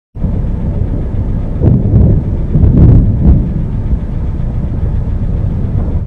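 Thunderstorm recorded outdoors: a loud, continuous low rumble of wind buffeting the microphone, swelling in stronger gusts about two and three seconds in.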